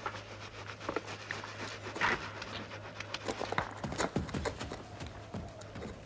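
Irregular knocks and clatter of hooves on stony ground and horns knocking as two horned rams shove head to head, over a low steady hum.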